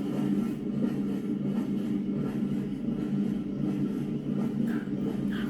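Washing machine running, its drum turning round and round with a steady low rumble and hum.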